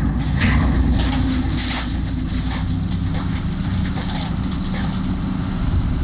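Heavy diesel vehicle or machine engine running, a steady low rumble with scattered short knocks and clatter.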